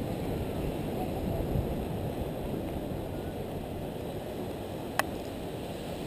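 Wind rumbling on the camera microphone, with one sharp click about five seconds in.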